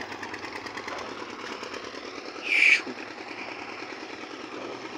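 Old steel truss bridge and its plank deck rattling rapidly and steadily under passing traffic, with one short, loud noise about two and a half seconds in.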